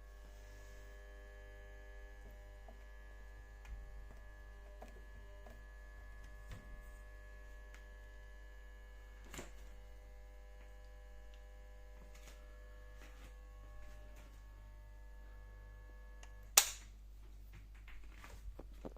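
Stoves electric oven giving off a steady electrical buzz, a mains hum with several steady overtones, as soon as it is powered at the fused switch and with no cooking setting selected: a fault that appeared after the heating element was replaced. The buzz cuts off with a loud, sharp click near the end.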